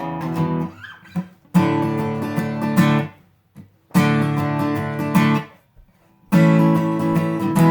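Acoustic guitar strumming chords in phrases of about a second and a half, each cut off by a short silent stop before the next chord comes in.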